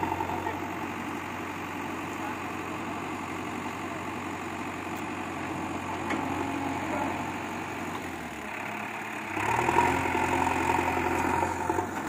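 JCB backhoe loader's diesel engine running steadily while the backhoe arm digs, growing louder about nine seconds in as the engine takes more load.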